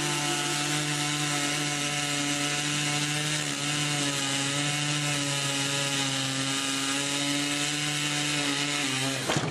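Chainsaw engine running steadily at high revs while cutting wood, its pitch dipping slightly now and then. The sound cuts off abruptly near the end.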